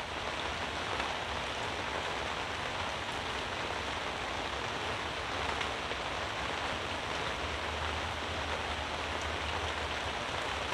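Steady rain hissing on the fabric canopy overhead, with a few single drops ticking now and then.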